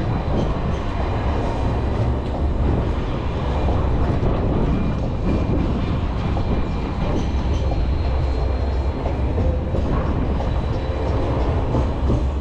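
Light rail tram running along the street, a steady rumble amid city street noise.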